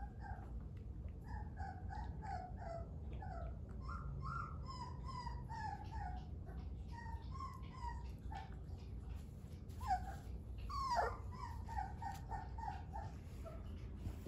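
Three-week-old Dogo Argentino puppies whimpering in a string of short, high squeaky cries, with a sharper yelp about ten seconds in and a louder, longer cry just after.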